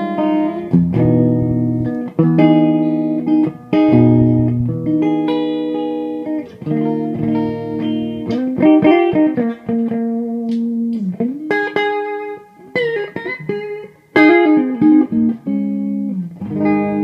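Electric guitar played through a Mesa/Boogie DC-5 tube amp's clean channel with 6L6 power tubes and an Eminence Red Coat speaker, a chimey clean tone. Ringing chords and single-note phrases, with string bends in the second half.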